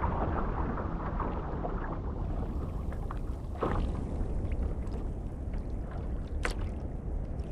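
Sea water splashing and rushing along the hull of a Think Six surfski as it is paddled through choppy open water, with a steady low rumble beneath. A couple of sharper splashes come through about halfway and near the end.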